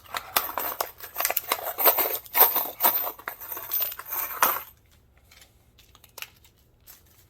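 Hands handling small hardware and packaging: a quick run of rustles and clicks lasting about four and a half seconds, then it stops.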